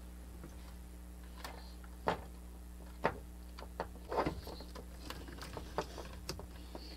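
Scattered light clicks and knocks of a circuit board and plastic parts being worked loose and lifted out of a battery booster pack's plastic case, about eight in all with a short cluster a little past the middle, over a steady low hum.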